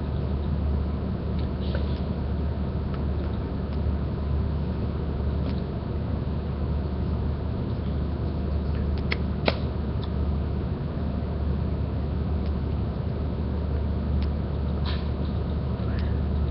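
Steady low hum and hiss of background noise, with a few faint clicks scattered through, the sharpest about nine seconds in.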